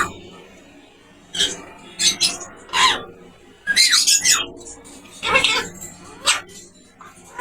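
Pet parrot calling in a string of about six short squawks and whistles, several with a sliding pitch, separated by brief pauses.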